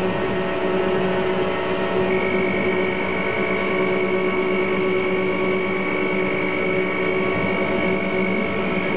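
Harbour gantry crane's electric drives humming steadily while moving a suspended load. A higher steady whine joins about two seconds in.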